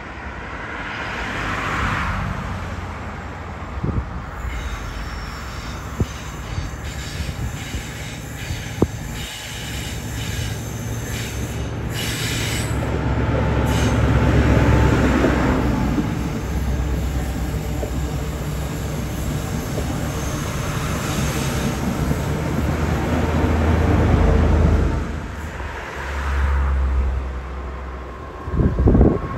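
Diesel High Speed Train with Class 43 power cars passing close by on curved track. A strong low diesel hum swells twice as the power cars go by, and the wheels squeal high-pitched on the curve while the coaches pass.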